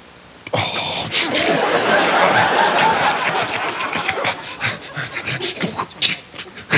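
Studio audience laughing, breaking out about half a second in after a brief hush and carrying on for several seconds.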